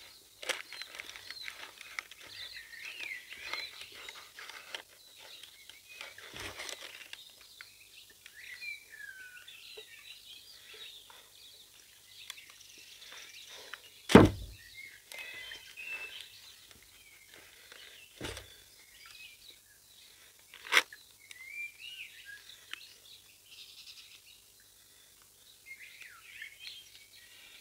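Birds chirping and singing in the background, with a few sharp knocks of a stainless steel mixing bowl against a cast iron camp oven as a sticky bread dough is tipped out of it. The loudest knock comes about halfway through.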